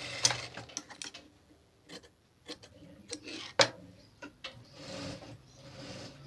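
Sewing machine winding down right at the start, followed by irregular clicks and light taps with brief soft rubbing of cloth as the stitched lining fabric is handled at the machine.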